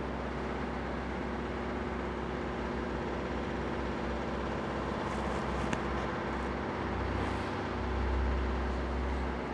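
Steady background noise: an even hiss over a constant low hum, with a single faint click about halfway through and a slight swell of low rumble near the end.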